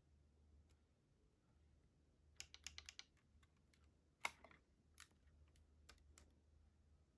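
Small hard plastic clicks from a Lego-brick AR-15 model being handled: a quick run of clicks about two and a half seconds in, one sharper click just after four seconds, then a few scattered clicks.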